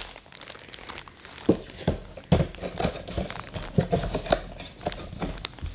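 Plastic bag of cotton balls being handled on a table: light plastic crinkling with a scattering of soft knocks and thumps, most of them in the second half.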